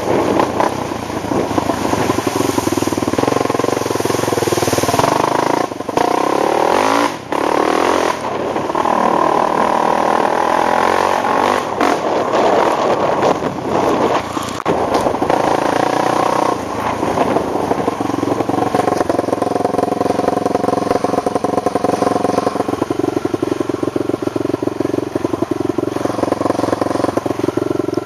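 ATV engine running under changing throttle, its pitch rising and falling as it revs up and eases off, with two brief drops in level a few seconds in.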